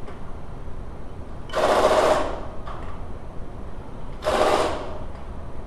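Two short bursts of a rapid buzzing rattle, one about a second and a half in and one about four seconds in, as the parts of a metal suspension tool are screwed together and handled.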